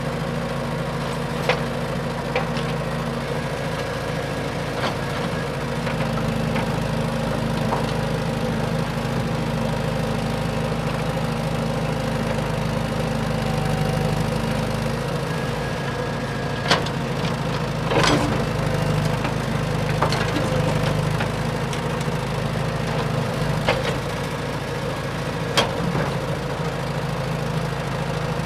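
Excavator engine running steadily, with a few sharp metallic clanks or knocks now and then.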